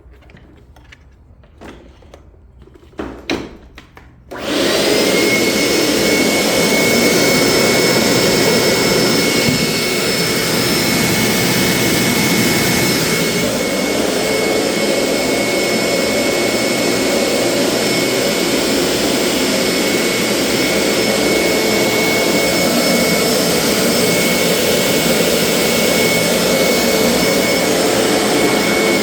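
A few clicks and knocks, then about four seconds in a Hoover SteamVac carpet cleaner's motor switches on and runs steadily with a high whine. It is running without any cleaning solution coming out, which the owner says he can do nothing about.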